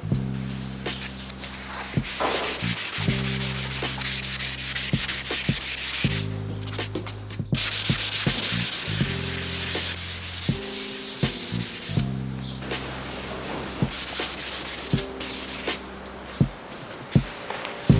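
Hand sanding with 400-grit sandpaper on the primed surface of a car fender: quick back-and-forth scratchy rubbing strokes, pausing briefly twice.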